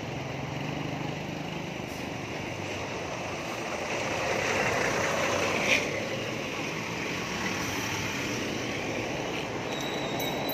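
Road traffic passing close by: engine hum and tyre noise, swelling as a large bus goes past about four to six seconds in, with a brief sharp click at the loudest point.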